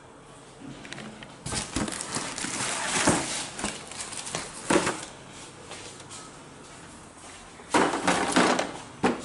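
Cardboard box and packing scraping and rustling as a boxed Panasonic PABX telephone system unit is lifted out, with sharp knocks from handling its plastic casing. A second burst of rustling and knocks comes near the end.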